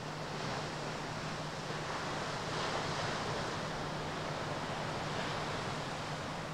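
Ocean surf breaking on a rocky shore: a rushing wash that swells about half a second in and again around three seconds in, over a steady low hum.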